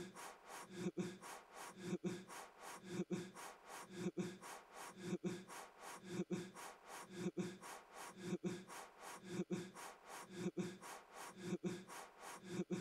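A man blowing hard at a relighting trick birthday candle over and over, short puffs about once a second with a quick breath between.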